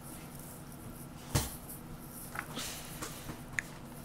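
Pages of a hardcover picture book being turned by hand: one quiet thump about a second and a half in, then paper rustling and a couple of brief squeaks.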